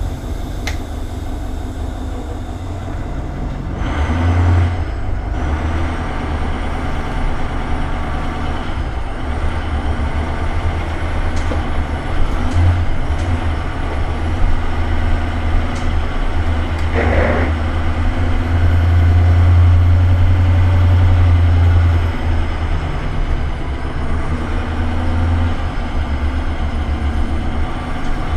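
School bus's International VT365 V8 turbo-diesel running under way, heard from the driver's seat, a steady low rumble that grows louder for a few seconds about two-thirds of the way through as the bus pulls away. A brief higher-pitched sound comes just before that.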